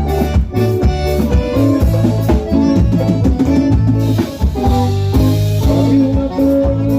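Band music with a drum kit keeping a steady beat under sustained melodic instruments.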